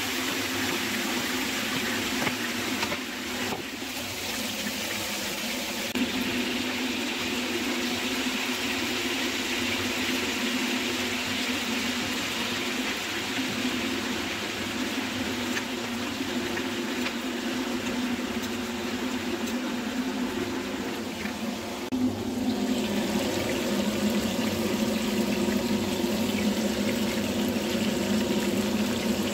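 Chicken pieces sizzling in a hot grill pan, a steady hiss over a constant low hum. About 22 seconds in the hiss drops away and a lower, fuller bubbling takes over as a pot of rice cooks in water.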